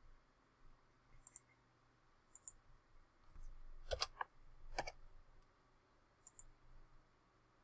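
Faint clicks of a computer mouse and keyboard: a few light, sharp clicks, some in quick pairs, with two louder clicks about four and five seconds in.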